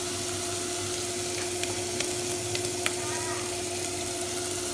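Cooked clam meat and shallots sizzling as they sauté in oil in a pot, over a steady low hum. A few light clicks come in the middle.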